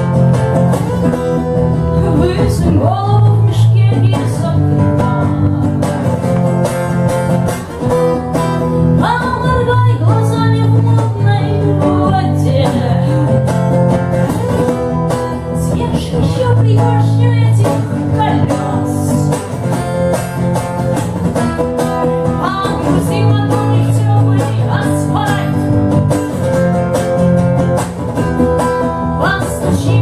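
A woman singing a song to her strummed acoustic guitar, with an electric bass guitar playing sustained low notes underneath.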